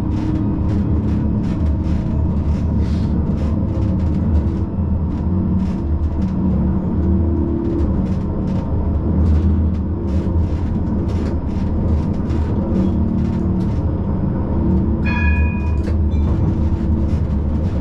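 Siemens Combino tram running along street track, heard from the driver's cab: a steady low rumble of wheels and drive with frequent clicks from the rails. About fifteen seconds in, a short high-pitched tone sounds for about a second.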